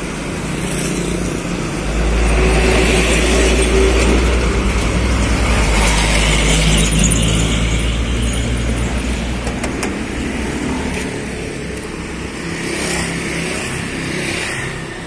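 Road traffic passing close by. A vehicle's engine grows loud about two seconds in, holds for several seconds and fades, and another vehicle passes near the end.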